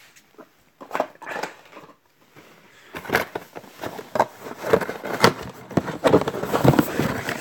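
Cardboard box and packaging being handled: rustling, crackling and knocks, sparse at first and then dense from about three seconds in.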